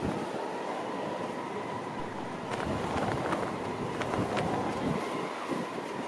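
Strong gusty wind rumbling over the microphone, with a steady high whine underneath and a few sharp clicks.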